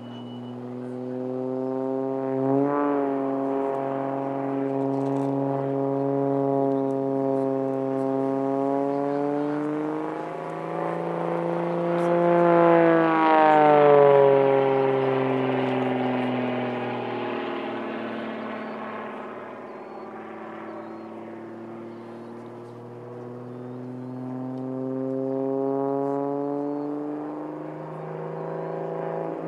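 Single-engine aerobatic monoplane's piston engine and propeller droning as it flies an aerobatic sequence, the pitch rising and falling with its manoeuvres. It grows loudest about twelve to fourteen seconds in, where the pitch sweeps down as the plane passes, fades a little, then swells again near the end.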